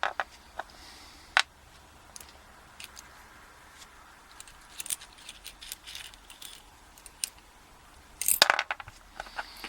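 Small metal clicks and light taps as the pins and springs are worked out of the bible of an Asec 5-pin euro cylinder lock. A quick cluster of rattling clicks comes about eight and a half seconds in.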